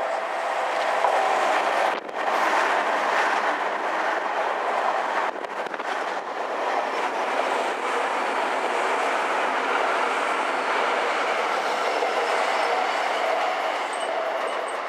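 Tokyu electric commuter train running through a station without stopping: steady, loud noise of steel wheels on the rails as the cars go by, dipping briefly about two seconds in.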